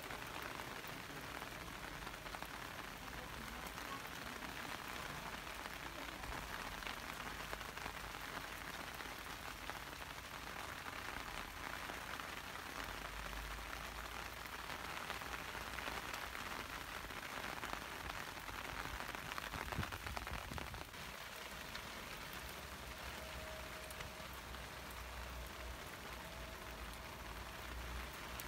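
A steady patter of falling water, like rain, with no speech.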